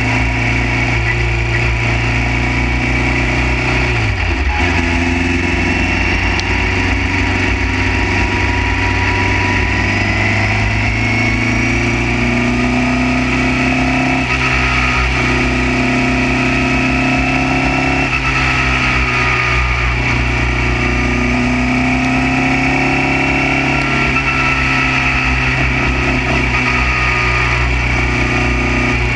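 Formula Junior single-seater racing car's engine running hard under racing load, heard from the car's onboard camera. Its pitch breaks and drops sharply about four seconds in, then shifts again several times.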